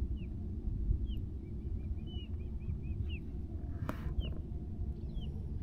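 Bird calls over open water: short, high, bending chirps now and then, and a quick run of repeated chirps about two seconds in. A steady low rumble runs underneath, and a single sharp click comes near the middle.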